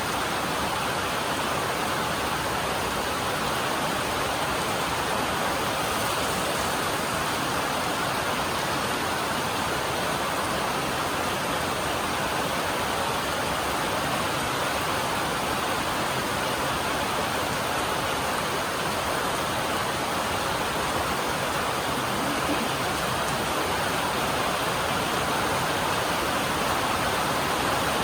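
Rainstorm on a metal roof: a steady, even wash of rain noise with no breaks.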